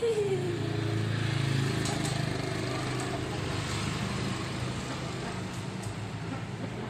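A small engine running steadily, slowly fading.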